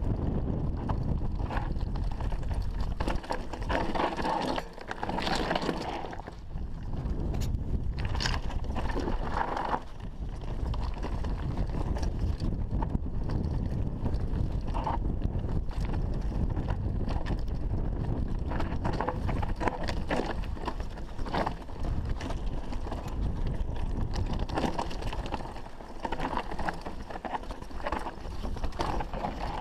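Mountain bike riding down a rocky dirt trail: tyres rolling over loose stones while the bike rattles and knocks over the bumps. Wind buffets the microphone throughout.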